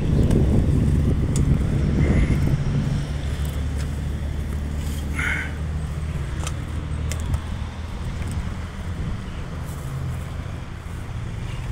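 Box truck's engine idling with a steady low hum, loudest in the first few seconds and easing after, with a few light clicks.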